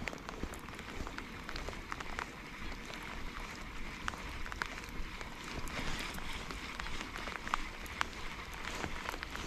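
Light rain pattering on the lake and on the kayak: a soft steady hiss dotted with many small, irregular drop ticks.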